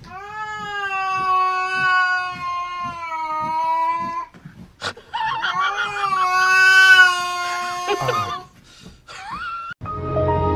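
Grey-and-white cat yowling: two long, drawn-out yowls of several seconds each, then a short rising call. Music starts near the end.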